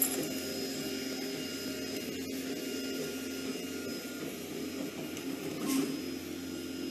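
A 3D printer at work, its motors giving a steady mechanical whir with several held tones.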